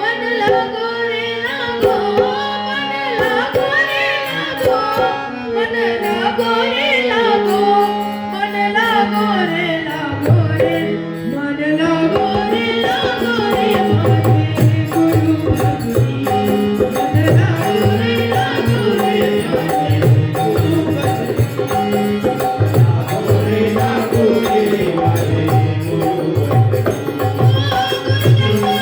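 Devotional bhajan music: a melody on harmonium and voice with dholak drumming, the drum strokes coming in strong and steady about halfway through.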